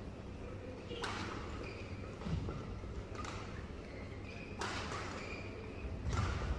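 Badminton rackets striking a shuttlecock in a doubles rally: sharp hits a second or more apart, over the steady hum of an indoor arena.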